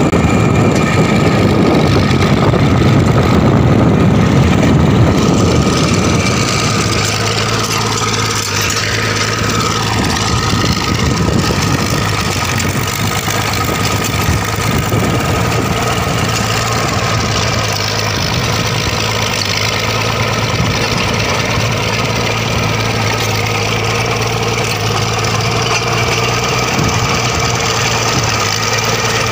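The 125 hp engine of a tractor-based trenching machine runs under load as the digger cuts a trench about 3 ft deep. It is louder and rougher for the first several seconds, then settles into a steady drone.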